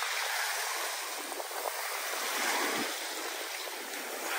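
Small waves breaking and washing up a beach: a steady hiss of foaming surf that swells slightly in the middle.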